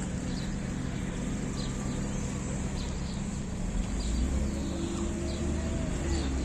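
Small birds chirping: short falling chirps repeated every half second or so, over a steady low rumble.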